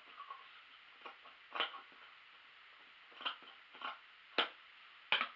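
Scissors snipping through stretchy knit fabric: about seven short separate cuts at irregular intervals, the loudest a little past the middle and near the end.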